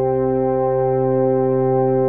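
Background music: a steady held chord with no new notes struck.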